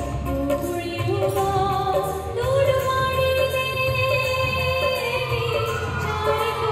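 Garba folk song with female singing over instrumental backing, the voices holding long notes over a steady low accompaniment.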